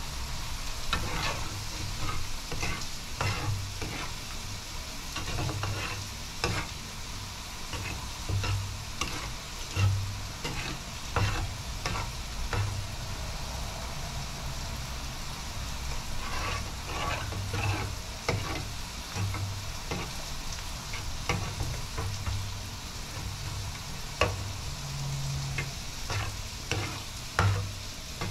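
Metal spatula stirring yogurt curry in a blackened pan, with irregular scrapes and clinks against the pan over a steady soft sizzle from the heated curry.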